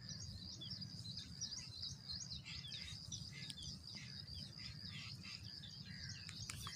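Faint birdsong in open farmland: many short chirps and downward-sweeping calls, over a steady high-pitched buzz and a low steady rumble.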